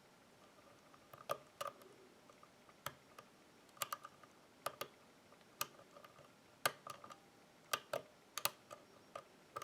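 Faint, irregular sharp metallic clicks of a lock pick hook working the pin stacks of a pin-tumbler lock under light tension, as pins are lifted, spring back or set.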